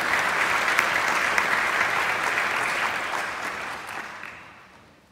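Audience applauding, steady at first and then dying away over the last two seconds.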